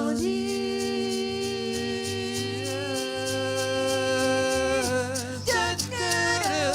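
Live song by a vocal duo with accompaniment: a sung note held for about five seconds over a steady beat. The melody then moves on in shorter, wavering notes.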